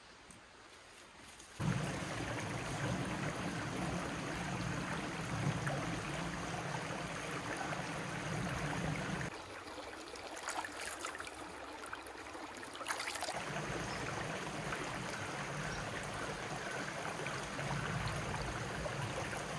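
Shallow rocky creek running, a steady rush of water that cuts in about a second and a half in. From about the middle for a few seconds, hands dipping in the water add small splashes and trickles.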